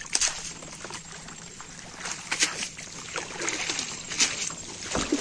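Water streaming and dripping off a wet cast net as it is hauled up out of the river, with a few louder splashes.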